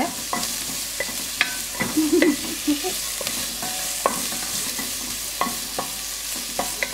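Sliced onions and garlic sizzling in a little oil in a pot, stirred with a spatula that scrapes and clicks against the pot now and then. The onions are being sautéed only until they turn translucent, not browned.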